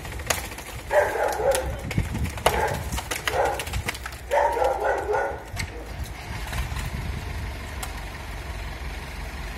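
A dog barking in four short bouts over about four seconds, over a steady low rumble.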